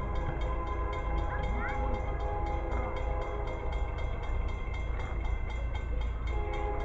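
A train approaching and running past: a steady low rumble with several steady engine tones held throughout.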